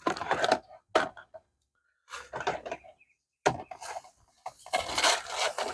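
Sandy paydirt rustling and scraping as it is handled, in several short bursts with brief pauses between.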